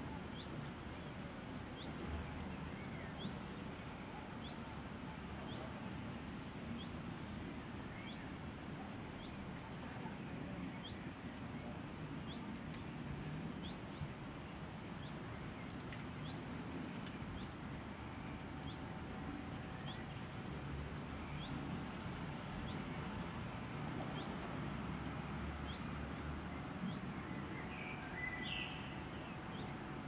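Outdoor ambience: a small songbird's faint, short, high chirps repeating about once a second through the first half, with a brighter call near the end, over a steady low rumble.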